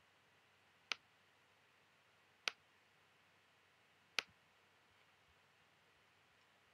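Three single computer mouse button clicks, about a second and a half apart, over near silence.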